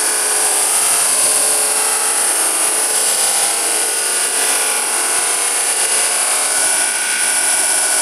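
A vacuum cleaner running, played back from a recording: a steady high whine over the rush of its motor and air.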